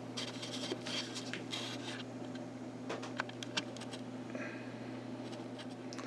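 Faint handling noise of small clicks and brief rustles over a steady low hum.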